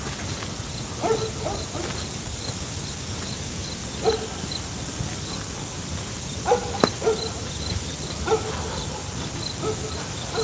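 A cricket chirping steadily, about three chirps a second, while dogs bark now and then in the distance, single short barks every second or few. A single sharp click sounds about two thirds of the way through.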